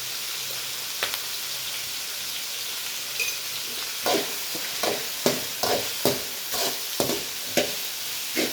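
Food frying in oil in a pan with a steady sizzle; from about four seconds in, a utensil scrapes and knocks against the pan in quick strokes, roughly two a second, as the ingredients are stirred and sautéed.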